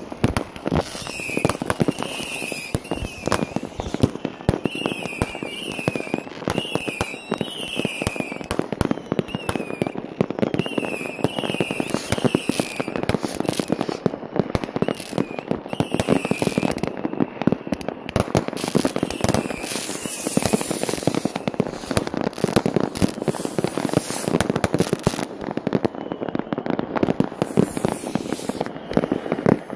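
New Year's Eve fireworks and firecrackers going off in a dense, continuous barrage of bangs and crackling. Over the first half, short high whistles rise and fall among the bangs.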